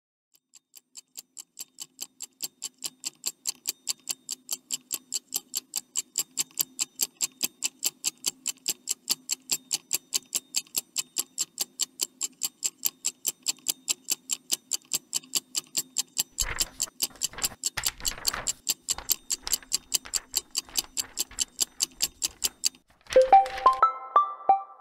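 Fast, even clock-like ticking, about four ticks a second, fading in at the start as a suspense sound effect. A few deep thuds join it about two-thirds of the way through. The ticking stops near the end, where a few piano notes come in.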